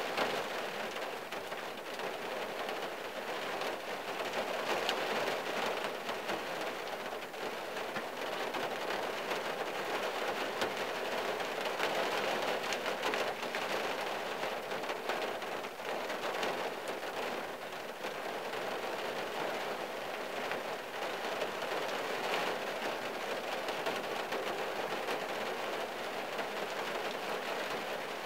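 Steady rain falling on the roof and windshield of a 1974 Valiant, heard from inside the car's cabin as an even hiss dotted with many separate drop hits.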